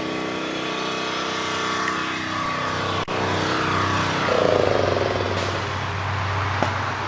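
Pressure washer running steadily in the background, its note sliding lower about two and a half seconds in. A louder, wavering sound swells about four seconds in and fades after a second or so, with a short click about three seconds in.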